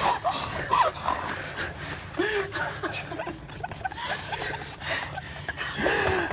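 Several people gasping, whimpering and squealing through stifled laughter, with short sharp breaths.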